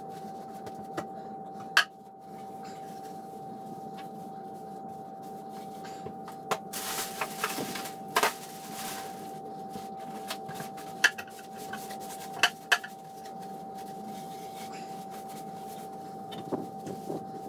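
Knocks, clicks and rustling as a porcelain toilet is wiped down with paper towels by hand, over a steady hum. The sharp knocks come at irregular moments. The rubbing is loudest for a second or two near the middle.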